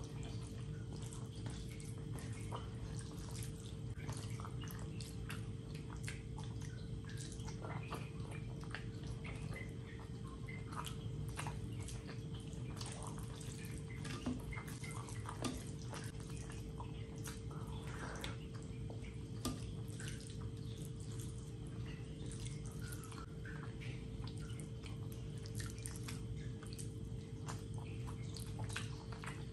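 Wet squelching and clicking of fingers working rice and curry on a plate, and of mouthfuls being chewed, over a steady low hum.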